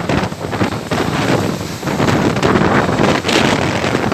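Violent storm wind gusting, a loud rushing that swells and dips unevenly as it buffets the microphone.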